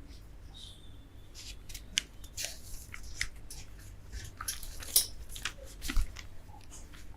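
Handling noise: a string of irregular clicks and rustles, with a brief faint squeak about half a second in.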